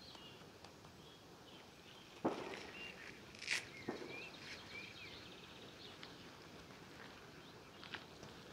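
Male common pheasant pecking and stepping on gravel close by: a few sharp taps and scuffs, the loudest a little over two seconds in, over faint songbird chirping.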